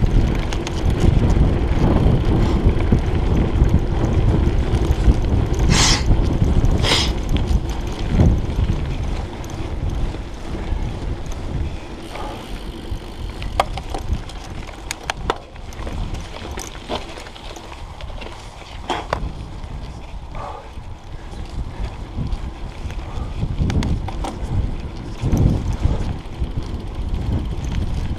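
Mountain bike ridden along a dirt trail, heard from a chest-mounted camera: wind buffeting the microphone and tyres rolling over the ground, with scattered clicks and rattles from the bike. The rumble is heavier in the first half and eases after that, and two short bright hisses come about six and seven seconds in.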